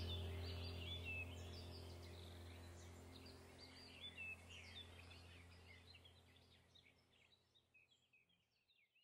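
Background track of birds chirping over a low steady drone, the whole thing fading out gradually until it is gone near the end.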